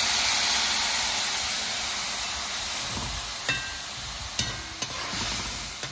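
Tamarind water poured into a hot pan of breadfruit frying in oil: a loud hiss and sizzle that slowly dies away, with a few metallic clinks of a spoon against the pan in the second half.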